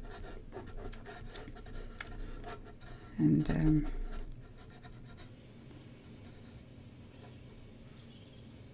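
Paintbrush scratching and rubbing across an acrylic-painted board in short strokes, busiest in the first four seconds or so, then fainter.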